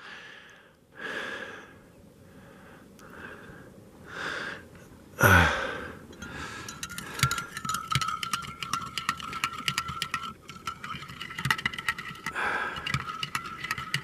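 Metal spoon stirring coffee in a ceramic mug, clinking rapidly against the sides with a steady ringing tone, starting about six seconds in. Before that, a few breathy hisses and one loud falling exhale about five seconds in.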